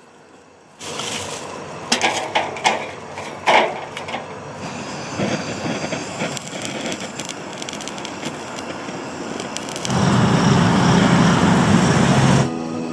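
Handheld butane gas torch hissing as its flame is played onto charcoal in a small grill, with sharp cracks in the first few seconds. About ten seconds in the flame turns louder and deeper for a couple of seconds, then cuts off just before the end.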